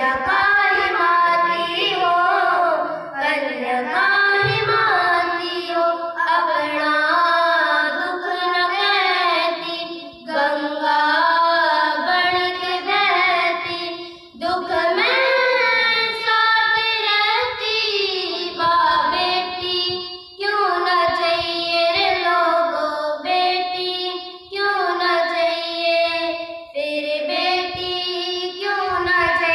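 Young girls singing a song into microphones, their voices carried over a PA. The melody runs in phrases broken by short pauses for breath.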